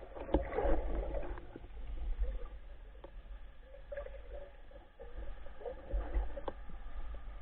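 Muffled underwater noise from a spearfisher's camera: water movement over a low rumble, with scattered short clicks and knocks.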